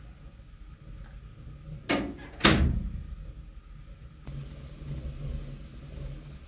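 Two knocks about half a second apart, the second much louder, from the teapot and tea glasses being handled on a metal serving tray. A low steady hum starts about four seconds in.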